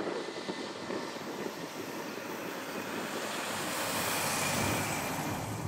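Boeing 737-400's CFM56-3 jet engines running as the airliner rolls out on the runway after landing. It is a steady, broad roar that swells and grows brighter about three to four seconds in.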